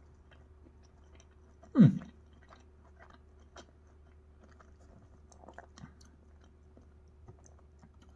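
A person chewing a mouthful of green beans and flatbread: faint, scattered wet mouth clicks. About two seconds in there is one louder, short sound from the mouth or throat, falling in pitch.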